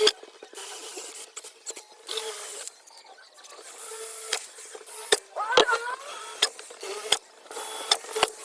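Drill running in several short bursts, a steady whine with hiss, boring small pilot holes through the van's sheet-metal roof, with sharp clicks and knocks between the bursts and a brief squeal about halfway through.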